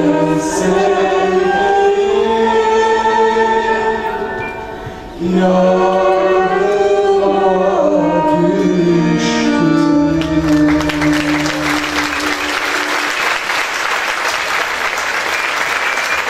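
A man and a woman singing together with a live band and choir, closing the song on long held notes. Audience applause breaks out about two-thirds of the way through and carries on after the music stops.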